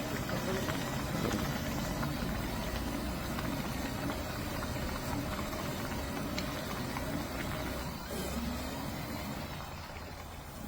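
A steady mechanical hum of a motor running, with a wash of noise and scattered faint clicks, easing a little near the end.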